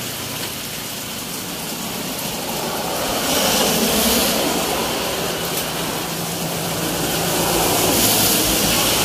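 Road traffic noise: vehicles passing by, swelling louder twice.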